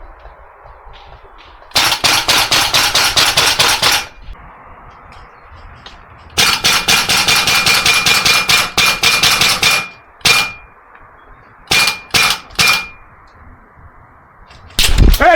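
Gas blowback airsoft rifle firing two long full-auto bursts of about a dozen shots a second, then a few single shots, with a thin ringing tone under the later shots. A sudden loud thud near the end.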